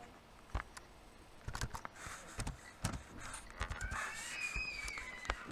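Scattered clicks and taps of a computer mouse and keyboard while an entry is typed in. Near the end a faint, high, wavering sound glides in pitch behind them.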